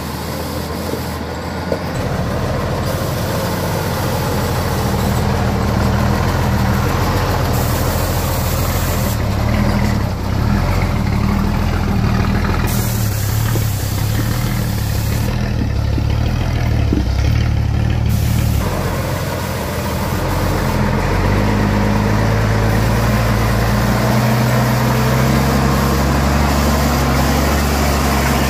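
Heavy truck engine running continuously, its note shifting in pitch through the middle and dipping briefly about two-thirds of the way in before settling to a steady run.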